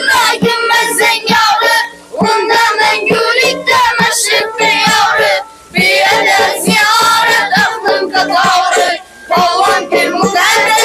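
A group of boys singing a folk song to long-necked lutes and a frame drum. The singing breaks briefly between phrases, about every three and a half seconds, while the drum strikes and plucked strings carry on.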